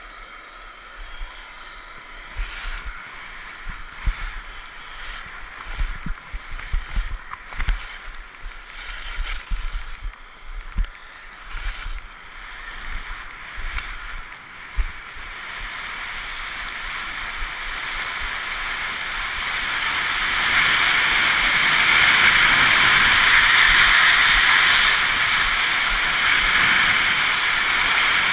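Skis on snow heard through a helmet-mounted GoPro: scraping with many irregular knocks and thumps in the first half, then a steady rushing hiss of wind and skis that builds from about halfway through and stays loud near the end.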